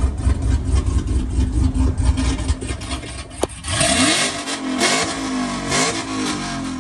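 Pickup truck's engine running through its newly fitted aftermarket exhaust: a loud, fast-pulsing idle, a sharp click midway, then several quick revs from about four seconds in that settle back down near the end.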